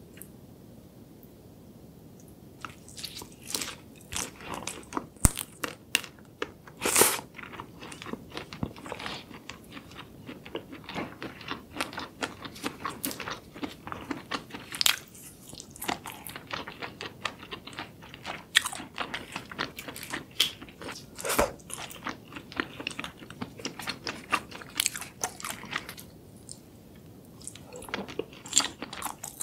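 Close-miked eating of spicy sauced shrimp: biting, crunching and chewing, with sharp clicks and crackles of shell. It is quiet for the first couple of seconds and pauses briefly near the end.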